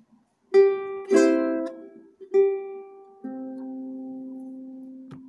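Ukulele played two-finger style, opening a slow tune: four plucks, some of them single notes and some two or more strings together, each left to ring and fade, the last ringing for about two seconds. A short click comes near the end.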